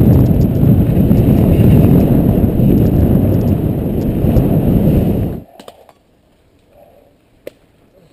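Wind buffeting the microphone of a bike-mounted camera, mixed with tyre rumble on a dirt trail, as a mountain bike rides fast downhill; it cuts off suddenly about five seconds in. After that it is quiet apart from a single sharp click near the end.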